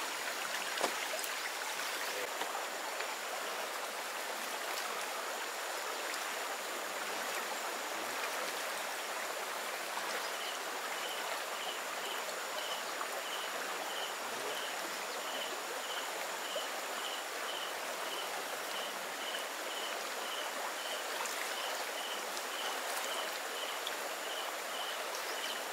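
Shallow stream running steadily. From about ten seconds in, a short high pip repeats about twice a second.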